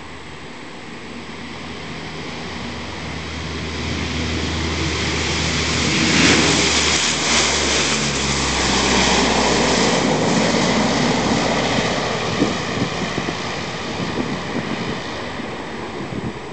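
Lockheed P-3 Orion air tanker's four Allison T56 turboprop engines at takeoff power, swelling as it runs down the runway and passes, loudest about six to ten seconds in. The propeller drone drops in pitch as it goes by, then fades as the aircraft climbs away.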